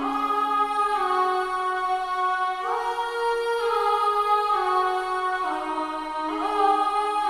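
Sampled pad from the Death Piano library in Kontakt playing a slow progression of sustained chords, with a soft, voice-like tone. The chords change about once a second, gliding smoothly from one to the next, with no drums.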